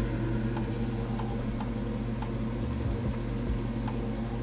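Steady low hum of household electrical equipment, with faint, evenly spaced ticks about three a second.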